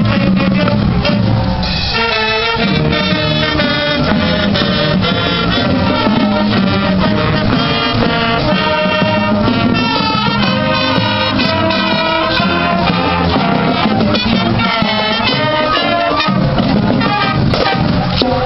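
High school marching band playing a tune on the march: brass with sousaphones and trumpets, saxophones and flutes sounding together.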